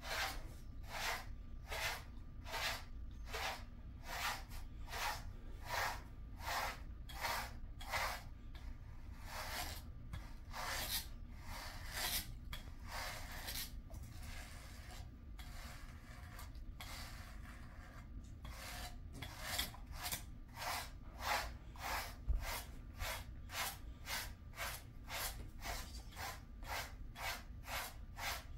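Slicker brush strokes through a dog's thick coat, a rhythmic raspy brushing at about two strokes a second, loosening and slowing for a while in the middle.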